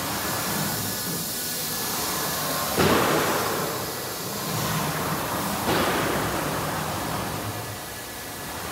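Steady machine noise of a running CNC wood router, with two sudden louder rushes of noise about three and six seconds in.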